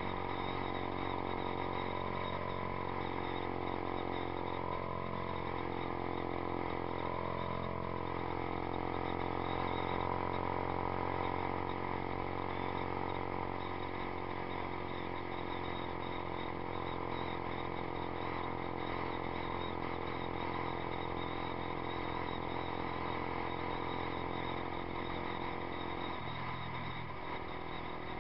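2012 Yamaha YZF-R15's 150 cc single-cylinder engine, breathing through a Two Brothers Racing aftermarket exhaust, running at a steady cruising speed under wind and road noise. The engine note changes near the end.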